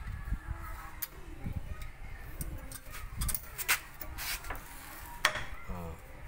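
Brake pad and caliper being handled on a Toyota Avanza's front disc brake: several sharp clicks and knocks as the pad is worked into the caliper, the loudest about five seconds in.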